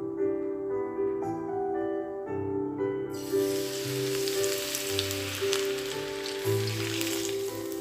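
Hot oil poured from a ladle over a steamed fish and its scallions, sizzling and crackling. It starts suddenly about three seconds in and dies away near the end, over soft piano background music.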